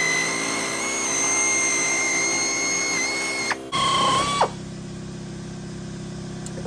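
Power tool motor running with a steady high whine that stops about three and a half seconds in. A second motor then whines briefly and winds down, leaving a lower steady hum.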